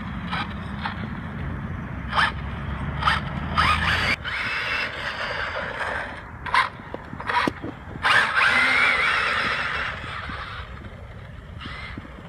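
Electric motor and drivetrain of a Carisma M48 Porsche 959 RC car whining in short throttle bursts, then two longer runs with a rising whine, tyres scrubbing on asphalt; the gear mesh sounds a bit off to the owner. A low rumble lies under the first four seconds.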